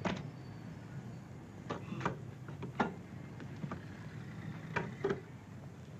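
About half a dozen sharp clicks and knocks at irregular intervals as the case of a portable radio set is handled, its lid open and its insides reached into. Steady hiss of an old film soundtrack underneath.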